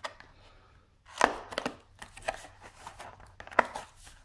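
Small cardboard product box handled as it is being opened: short, sharp taps and scrapes of fingers and card, a cluster of them about a second in and another near the end.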